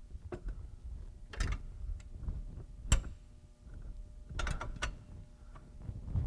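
Scattered sharp clicks and knocks of hand tools and bolts as a strut is fitted to the spindle with serrated strut bolts, the loudest knock about three seconds in and a quick cluster a second and a half later.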